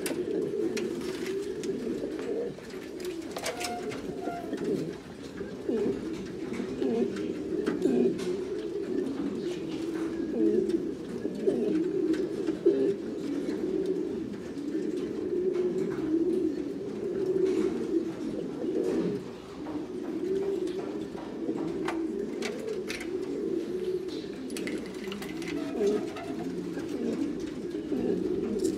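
Buchon Gaditano pouter pigeons cooing, many overlapping into a continuous low warbling chorus, with a few faint clicks.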